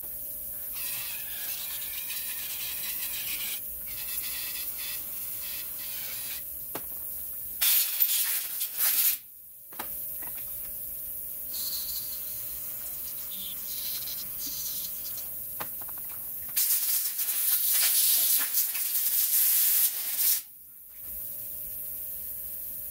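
Aerosol spray can hissing through a straw nozzle in two loud bursts, a short one about eight seconds in and a longer one of about four seconds later on, flushing diesel injector parts clean. Between the bursts there is quieter rubbing and handling of small parts over a faint steady hum.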